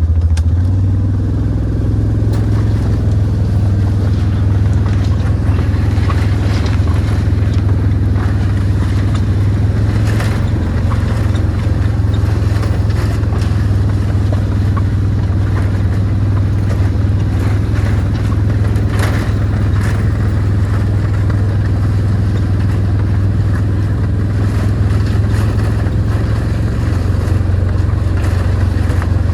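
A motor vehicle's engine running at a steady low drone, with a couple of brief knocks or rattles about a third and two-thirds of the way through.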